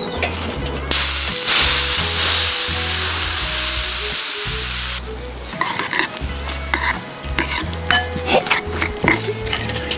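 Hot oil poured over chopped chilies, herbs and sesame seeds in a ceramic bowl, sizzling loudly for about four seconds before cutting off abruptly. Then a metal ladle stirs the sauce, clinking and scraping against the bowl.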